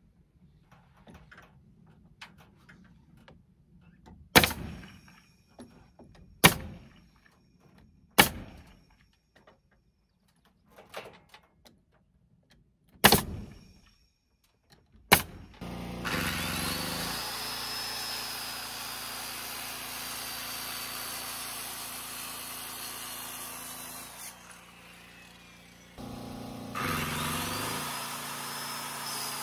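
A nail gun fires five single shots, one every couple of seconds, fastening lap siding. From about halfway through, a circular saw whines up to speed and cuts through an LP SmartSide engineered-wood siding board. It stops, then starts a second cut near the end.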